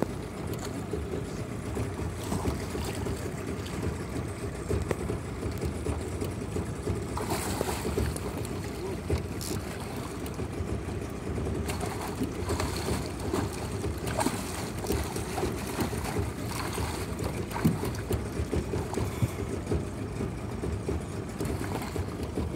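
Steady rushing ambience of a small aluminium fishing boat on a river, with scattered knocks and a few brief louder bursts.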